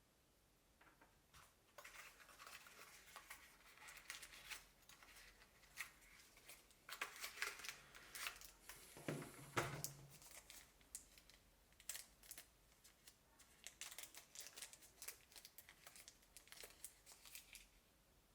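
Packaging and small parts being handled during an unboxing: rustling, with many small clicks and taps. A louder, duller knock comes about nine seconds in.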